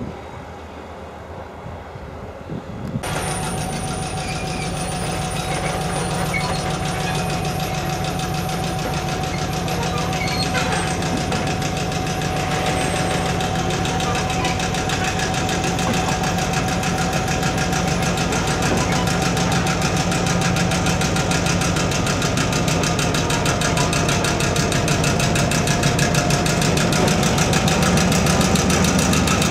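MÁV M62 diesel locomotive's two-stroke V12 engine running as it passes with ballast hopper wagons, together with the wagons' running gear on the track. A steady high whine sits over the engine throughout, and the engine grows louder as the locomotive comes close near the end.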